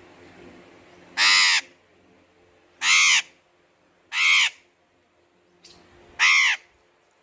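A parrot giving four loud calls, each under half a second long and spaced one to two seconds apart, each call rising and then falling in pitch.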